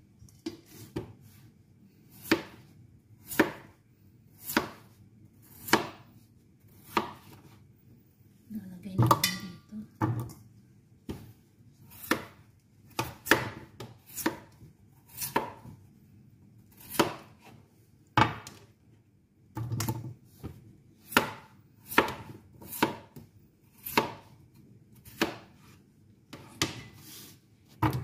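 Kitchen knife slicing peeled raw potatoes into rounds on a plastic cutting board: a sharp knock each time the blade goes through and hits the board, about once a second.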